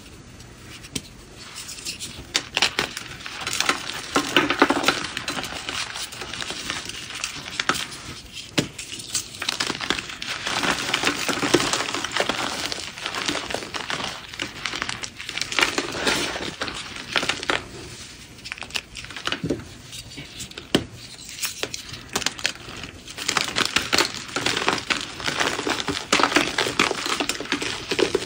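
Reformed gym chalk crushed and crumbled by hand: dense, crunchy crackling with many small sharp snaps as the blocks break into chunks and powder. It starts about a second in and comes in repeated swells.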